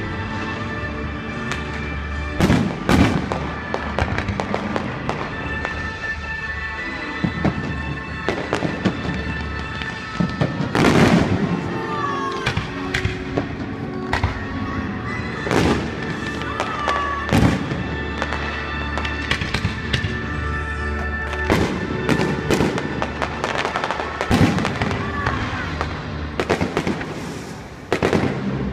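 Aerial fireworks display: shells bursting in a string of irregular bangs and crackles, with a heavy cluster of bangs about eleven seconds in.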